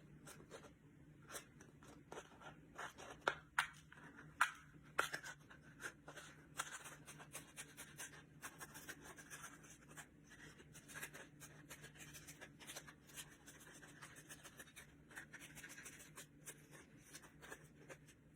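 Small scissors snipping and scratching through a cardboard toilet paper roll, cutting a hole in it: a run of faint irregular snips and rustles, a few sharper ones about three to four and a half seconds in.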